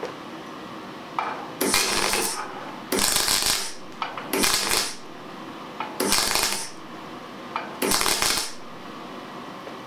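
MIG welder laying five short tack welds on a steel chassis dumb iron. Each is a crackling sizzle of about half a second, with short pauses between.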